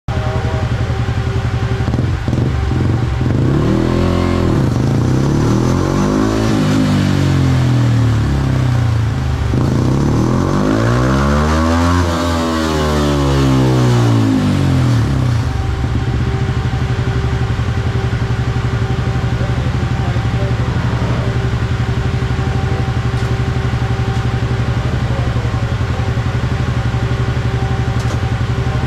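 Yamaha Sniper 150's single-cylinder four-stroke engine running with its rear wheel on a dyno roller. It is revved up and back down several times in the first half, the biggest rev about halfway through, then runs steadily at one speed.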